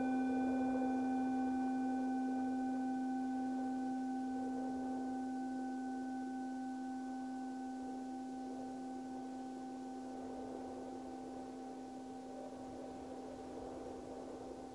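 Meditation singing bowl ringing after a strike, its low tone slowly fading while the higher overtones die away within the first few seconds. Wind sounds hiss steadily underneath.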